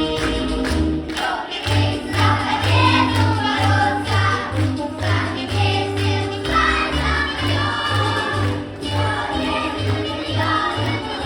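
Children's choir singing a song over a backing track with a steady bass beat and tambourine-like percussion.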